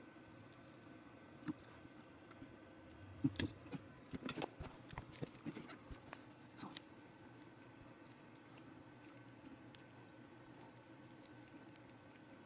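Small metal parts of an enamelled medal being handled and fitted together: light clicks and scrapes, clustered a few seconds in.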